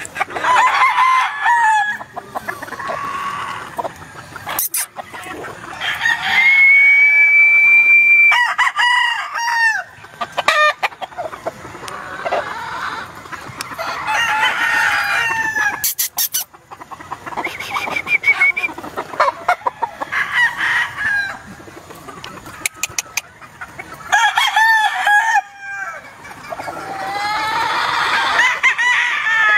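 Gamefowl chickens calling and clucking again and again, with a rooster's long crow about six seconds in. A few sharp clicks come in between the calls.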